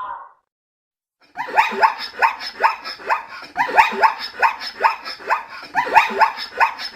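An animal giving a rapid series of short yelping calls, each falling in pitch, about three a second, starting about a second in after a brief silence.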